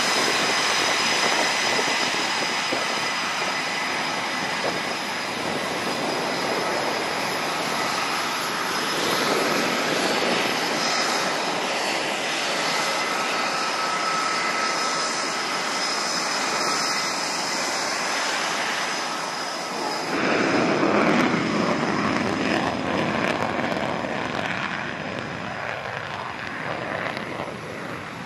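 EA-18G Growler's twin General Electric F414 turbofan engines running as the jet taxis: a steady loud jet rush with high whining tones over it. About two-thirds of the way through, the rush grows louder and deeper, then eases off toward the end.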